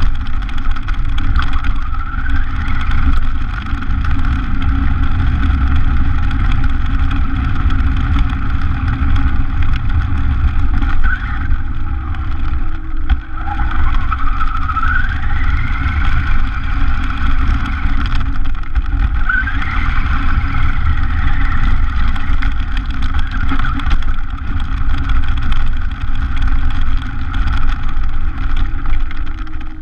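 Onboard sound of an RC car driving over gravel: a steady motor whine that rises in pitch several times as it speeds up, over a heavy rumble from the tyres and chassis vibration.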